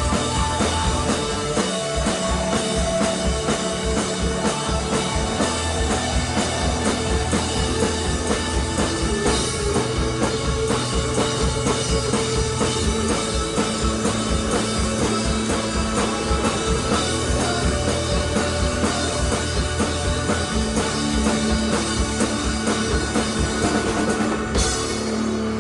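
Live rock band jamming: drum kit keeping a quick steady beat under sustained guitar and bass notes.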